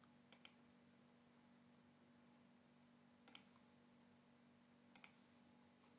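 Three computer mouse clicks, each a quick double tick of button press and release: about a third of a second in, at about three and a quarter seconds, and near five seconds. Between them there is near silence with a faint steady hum.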